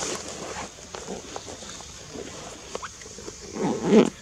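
A faint steady high hiss with small scattered clicks, then a short, loud voiced sound about three and a half seconds in.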